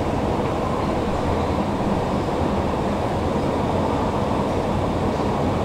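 Subway station escalator running, heard from on its moving steps: a steady, low mechanical drone that does not change.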